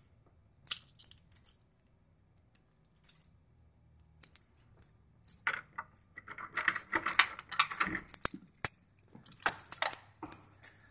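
A bunch of keys jangling in short, scattered bursts as a locked knob-set door is unlocked, then denser clattering and handling noise as the door is opened about halfway through.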